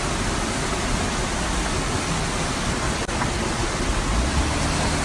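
Rushing floodwater, a steady loud wash of noise, broken by a momentary dropout about three seconds in.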